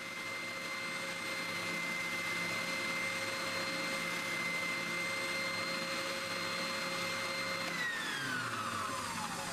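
Electric power tool running steadily at speed with a high whine, then switched off about eight seconds in, its whine falling as it winds down.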